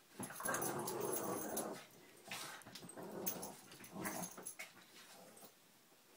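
Two Boston terriers play-fighting and growling: one long growl starting about a quarter second in, then several shorter growls, tapering off near the end.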